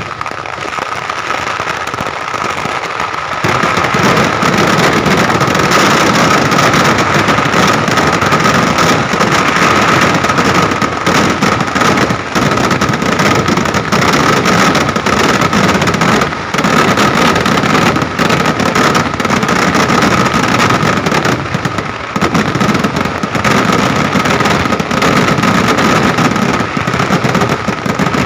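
Massed fireworks of a Kerala vedikkettu going off in a continuous, rapid barrage of explosions and crackle, getting louder about three seconds in.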